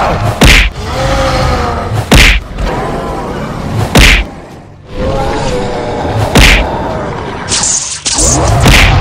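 Cartoon fight sound effects: about five heavy punch-like impacts, roughly two seconds apart, over background music, with a whoosh near the end.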